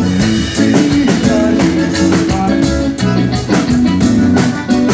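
Live band playing an upbeat instrumental groove in a forró rhythm, with drum kit, bass and guitar keeping a steady beat.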